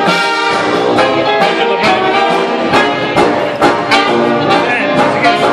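A 1920s-style jazz dance orchestra playing live: trumpets and saxophones over a sousaphone bass and drums, with a steady beat of about two strokes a second.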